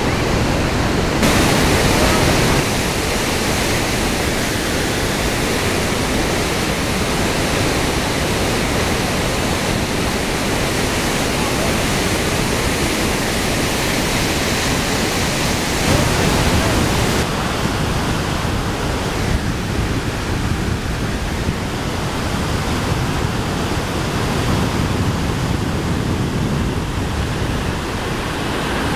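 Steady rush of whitewater from a waterfall and river rapids in full flow. The sound changes abruptly a few times, at about a second in, at two and a half seconds, and twice in the second half.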